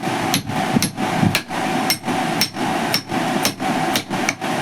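Repeated hammer blows on metal tools, roughly two strikes a second, as a chisel and crowbar are driven in to break an auto-rickshaw tyre's bead off the rim without tyre levers.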